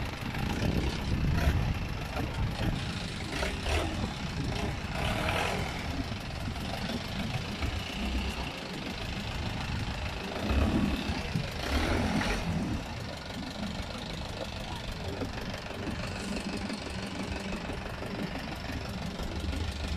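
Longtail boat engine running steadily, heard from on board, with wind and water noise over it.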